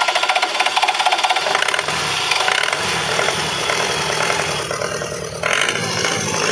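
Small bare diesel engine turning on its starter motor with starting fluid sprayed into the intake, then catching and running roughly with a rattle. Rapid even pulsing at first gives way about two seconds in to a steadier, deeper running sound.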